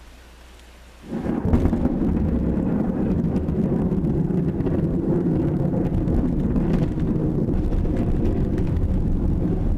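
Thunderstorm with steady rain falling; about a second in, a loud low rumbling starts suddenly and holds steady.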